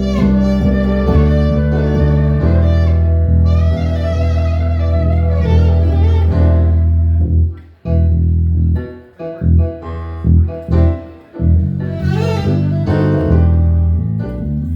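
Live instrumental jam: a sustained melody over a heavy, steady bass line. About halfway through it breaks off briefly into short, choppy notes, then the full sound comes back.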